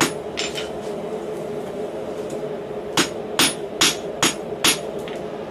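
Hand hammer striking a red-hot steel knot on a steel anvil block. A blow at the start and a couple of lighter taps are followed, after a pause, by a run of five blows at about two and a half a second, over a steady hum.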